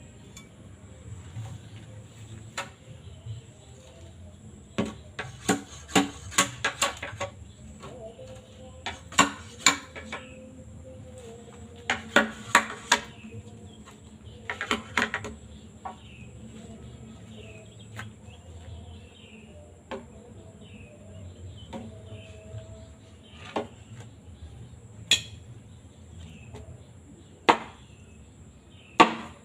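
Bamboo being split by hand: sharp, slightly ringing knocks and cracks of a blade working into the cane. They come in quick clusters of several strikes a few seconds apart, with single knocks in between.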